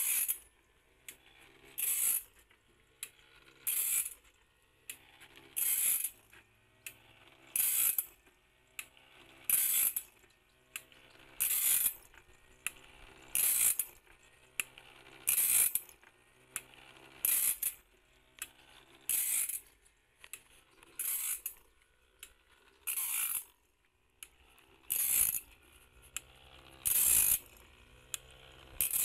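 Automatic bandsaw blade sharpener working along the blade: a short burst of grinding about every two seconds as the wheel passes each tooth, with quieter mechanical clicking of the feed mechanism between.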